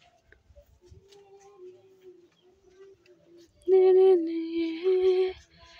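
A female voice singing a slow melody in long held notes, faint at first and much louder from about two-thirds of the way in.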